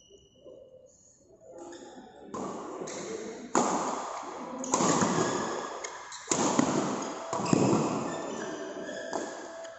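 Badminton rally: the shuttlecock is struck by racquets about once a second, each hit sharp and followed by echo in a large hall. The first two seconds are quiet.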